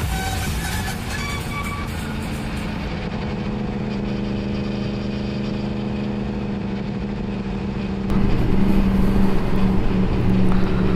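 Yamaha MT-10 SP's crossplane inline-four engine running at steady revs while riding. It gets clearly louder about eight seconds in. Electronic background music fades out in the first second or so.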